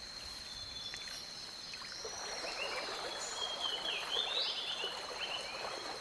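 Rainforest ambience: a steady high insect drone, with faint chirping calls joining in from about two seconds in.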